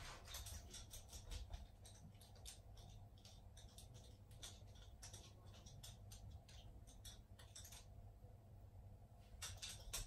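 Faint, irregular clicking of a Shiba Inu's claws on a hardwood floor as the dog walks about, over near silence.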